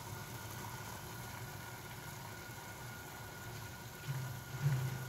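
Black tea bubbling at a rolling boil in a pot on a gas burner turned up to full flame, over a steady rushing hiss. A brief low hum rises about four seconds in.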